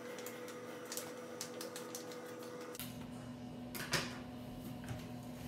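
Scissors cutting the top off a pre-packaged popcorn pack: a run of quick small snips and clicks, then two louder snips later on, over a faint steady hum.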